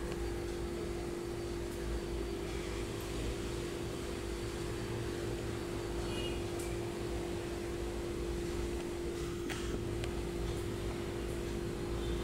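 Steady machine hum at an even level: a constant pitched tone over a low rumble and faint hiss, with a couple of faint clicks.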